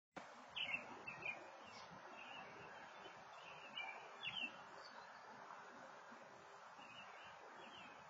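Faint birds chirping: a few short, high chirps, the clearest in the first half, over a steady low background hiss of outdoor noise.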